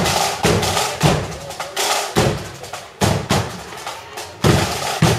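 Marching band's drums playing in the street: heavy bass drum strokes with snare drums.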